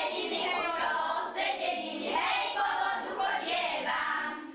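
A group of children singing a Slovak folk song together, in continuous sung phrases.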